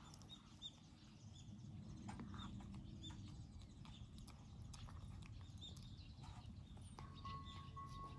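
Faint, irregular clicks and crunches of a stray cat chewing food, with small chirps in the background and a low rumble underneath.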